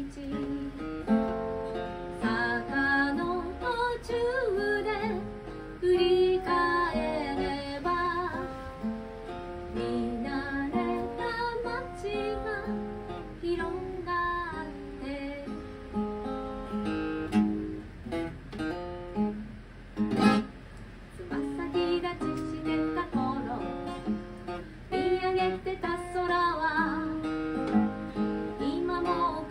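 A woman singing while playing her own acoustic guitar, chords and picked notes under the voice. A single short thump stands out about two-thirds of the way through.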